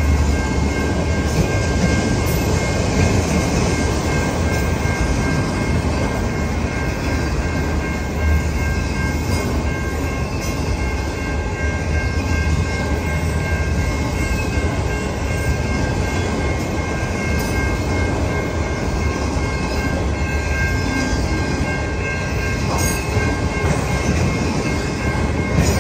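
CN autorack freight cars rolling steadily past at a level crossing: a continuous rumble and clatter of wheels on rail, with a few sharp clicks and steady high-pitched tones ringing over it.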